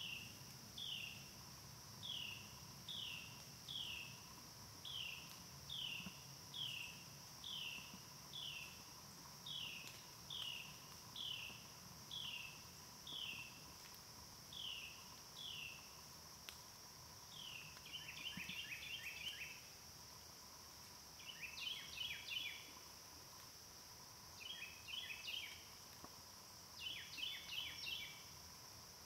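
Woodland animal calls: a short downward-slurred note repeated about one and a half times a second, then from about two-thirds of the way in, bursts of fast chattering notes every few seconds. Under them runs a steady high insect drone.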